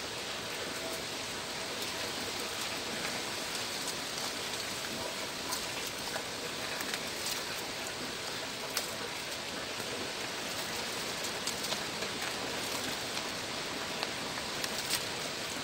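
A steady, even hiss with a few faint light ticks scattered through it.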